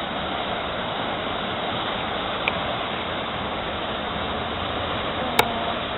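Steady rushing of moving water, with a sharp click about five and a half seconds in.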